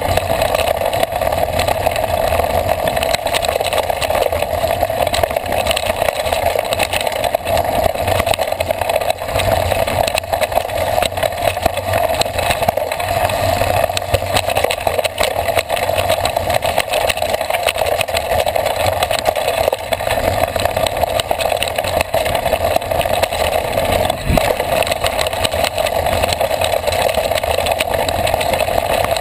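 Mountain bike riding fast down a dirt trail, heard from the handlebars: a steady rolling rumble and hum of tyres and wind with constant small rattles and knocks, and one sharper knock near the end.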